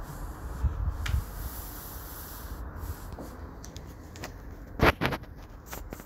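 Handling noise from a handheld camera being swung about: rubbing and rustling with a low rumble near the start. A sharp double knock comes about five seconds in.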